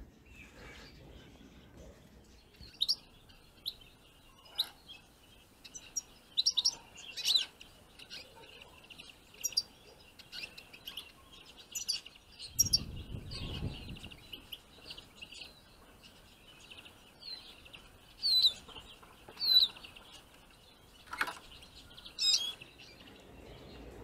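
Small finches at trap cages giving short chirping calls, scattered singly and in quick clusters. A low rumble comes about halfway through, and a sharp click near the end.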